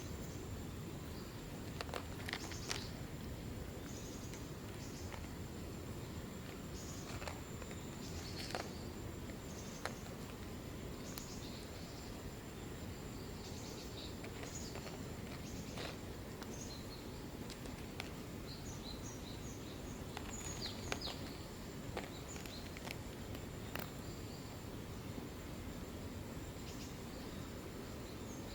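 Outdoor background noise: a steady low rumble with scattered faint clicks and short high chirps, over a constant thin high-pitched tone.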